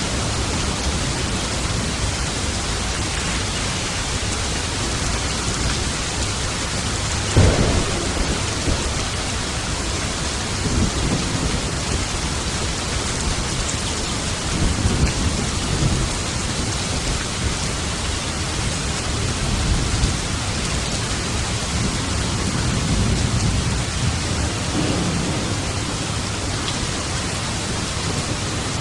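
Steady heavy rain with thunder: a sharp, loud clap about seven and a half seconds in, followed by several low rolling rumbles through the rest of the storm.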